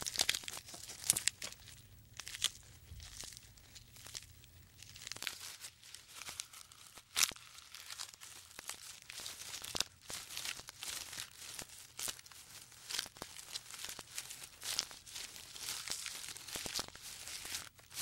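Giraffe browsing on a leafy tree: irregular rustling, crackling and tearing as leaves and twigs are stripped from the branches, with a few sharper snaps.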